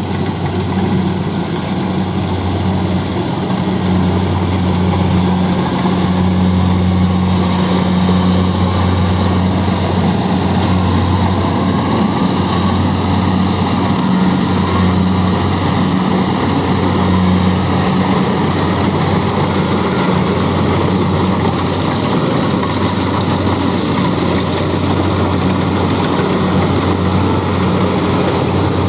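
Engine of a rice-harvesting machine running steadily: a constant low hum with dense machinery noise over it.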